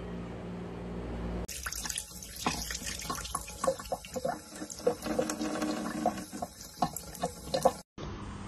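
A thin stream of tap water running from a kitchen faucet into a sink, with irregular splashes and ticks. It starts about a second and a half in, after a steady low hum, and cuts off suddenly near the end.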